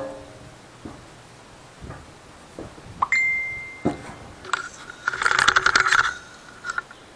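Small metal objects clinking: a sharp metallic ding that rings for about a second, about three seconds in, a knock, then a quick rattle of small metal clinks.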